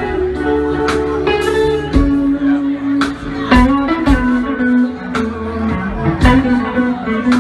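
Live band playing: an electric guitar leads over bass guitar and drums.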